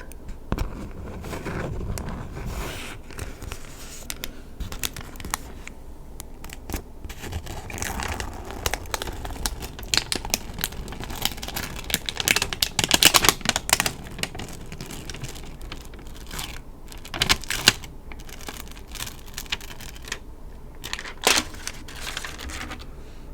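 Close-miked crinkling and crackling of something handled, with many sharp clicks and a few denser crackly flurries, the busiest about halfway through.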